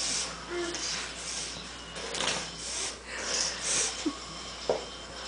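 A person making fake farting noises: a series of short, breathy sputters and blows, some close together.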